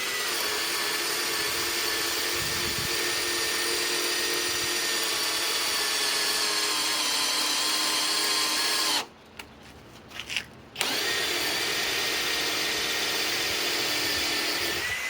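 Masterforce Boost 20-volt cordless hammer drill driver running steadily while drilling: one long run of about nine seconds, its whine sagging slightly in pitch near the end, then a short stop with a few light knocks, then a second run of about four seconds.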